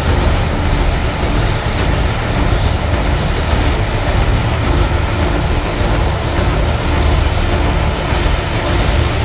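Steam locomotive 477.043 'Papoušek' working at low speed, a loud, steady hiss of escaping steam over a low rumble.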